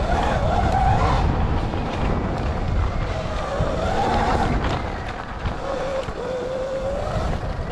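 Dirt bike being ridden: a motor whine that rises and falls in pitch several times as the bike speeds up and slows, over heavy wind buffeting on the microphone.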